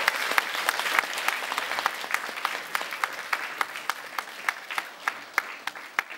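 Audience applauding, dying away steadily until only a few separate claps stand out near the end.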